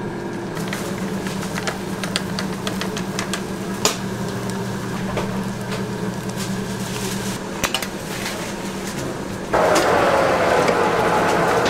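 Food-stall kitchen clatter: scattered clinks and taps of utensils and trays over a steady low hum. About nine and a half seconds in, a louder rushing noise starts, carrying a tone that slowly falls in pitch.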